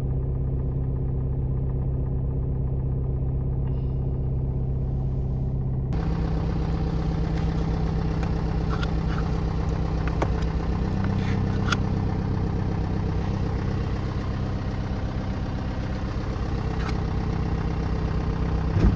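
A MINI Clubman diesel engine idling steadily. Its note steps up slightly about six seconds in, and a few sharp ticks sound through the second half.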